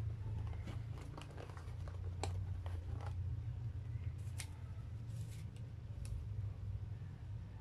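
Paper receipt and order slips crinkling and tearing as they are peeled off a cardboard pizza box: a run of irregular sharp crackles, thickest in the first few seconds, with a few more near the middle. A steady low hum runs underneath.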